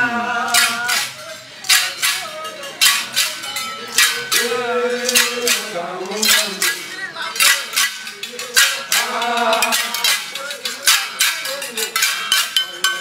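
Sharp metallic clinks struck several times a second at an uneven pace, with men's voices singing in phrases between them.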